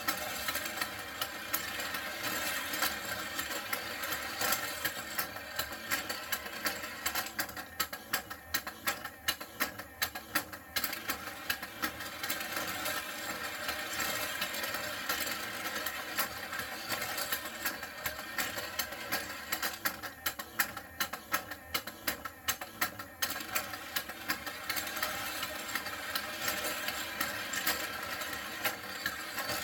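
Battery-powered puppy stair-climber racetrack toy running: its small motor whirs steadily as the moving stairs carry plastic dalmatian figures up. Rapid, irregular plastic clicks and clatter run through it.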